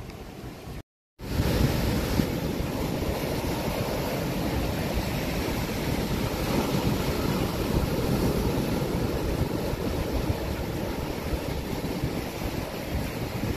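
Sea surf breaking and washing over black rocks at the shore: a steady, rushing roar of water. About a second in it drops out for an instant and comes back louder.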